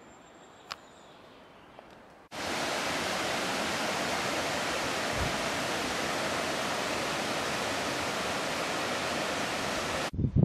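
Rushing river water: a loud, steady hiss that starts abruptly about two seconds in and cuts off just before the end. Before it there is only faint background with a single small click.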